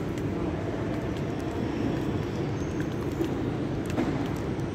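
Steady low rumble of railway station ambience, with a few faint clicks.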